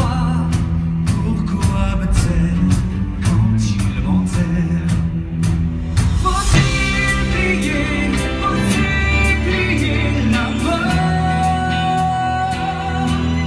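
Live band with a steady drum beat, bass and electric guitar playing a stage-musical number. A male lead singer comes in about halfway through and ends on a long held note.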